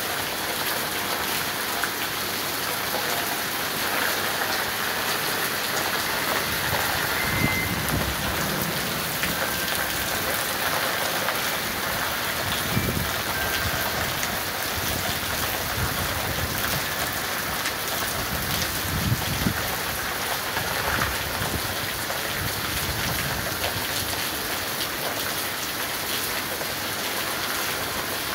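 Heavy rain pouring down and hissing steadily on the street and porch surfaces. Low rumbles of thunder come and go through the middle of the stretch.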